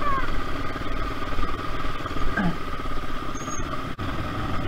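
KTM RC 200's single-cylinder engine running steadily while the bike rides over a rough gravel road, with wind and road rumble mixed in. The sound drops out for an instant about four seconds in.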